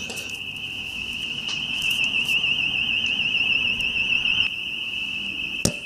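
School building alarm sounding continuously: one steady high-pitched tone that wavers in a fast warble for a couple of seconds in the middle. A sharp click comes near the end.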